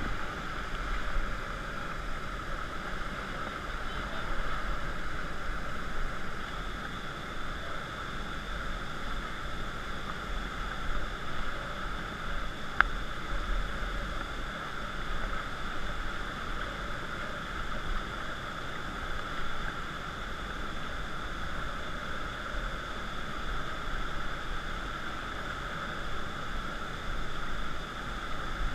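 Steady rush of river water flowing past an inflatable raft, with one sharp click about thirteen seconds in.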